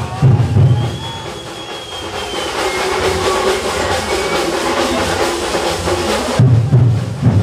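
Drum-heavy music. Heavy low drum beats open it, then a lighter stretch with a held tone, and the heavy beats come back about six seconds in.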